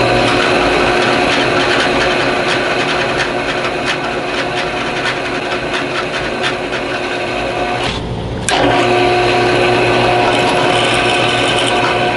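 Power-driven center drill cutting into a hole saw arbor: a steady motor hum with scratchy cutting ticks. The motor stops for a moment about eight seconds in, then runs and cuts again.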